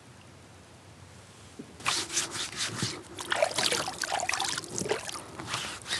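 Wet hands scrubbing and splashing lake water onto a trouser leg to wash off pike slime: rough rubbing and splashing, starting about two seconds in.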